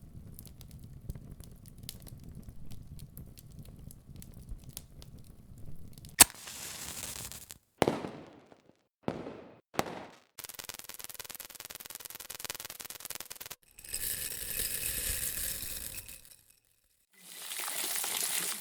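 A run of separate short sound effects for video editing. It opens with about six seconds of low crackling and scattered clicks, then a single sharp click, several brief swishes and noise bursts with silent gaps between them, a steady hiss, and noise swells near the end.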